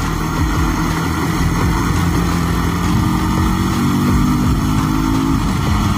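Motorcycle engine running while riding, with steady road and wind noise on the microphone; the engine note climbs a little in the middle.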